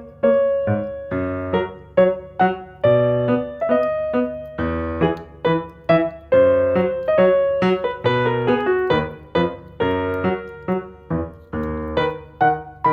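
Background piano music: a melody of struck notes over chords, each note fading after it is played.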